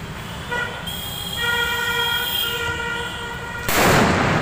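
A Diwali firecracker bomb on the road going off with one loud blast near the end. Before it, a steady high-pitched tone with several overtones runs for about three seconds.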